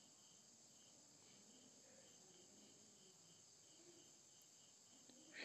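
Near silence with faint insects chirping: a steady high shrill and a soft chirp repeating about twice a second.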